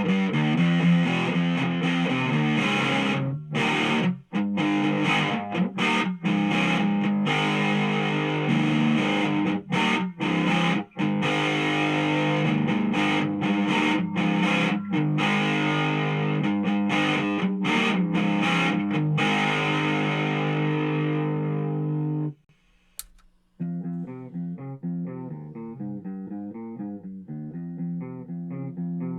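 Electric guitar played through a handmade distortion pedal: thick, distorted chords with many abrupt stops. About 22 seconds in the sound cuts out and there is a single click, then the guitar carries on with a cleaner, duller tone.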